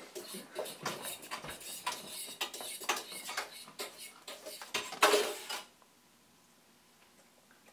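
Utensils clinking and clattering in a small stainless-steel sink, many quick knocks in a row, with a louder, longer burst about five seconds in, after which the clatter stops.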